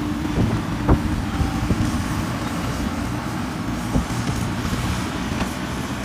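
Diesel engine of a JCB 3DX backhoe loader running steadily under load as its front bucket pushes dirt, with a couple of sharp knocks, about one second and four seconds in.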